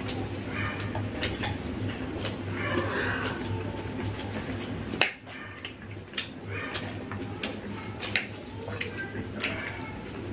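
Wet squelching of hands mashing rice with egg curry on plates, and mouth sounds of chewing, with many small smacks and clicks and a sharper click about five seconds in. A steady low hum runs underneath.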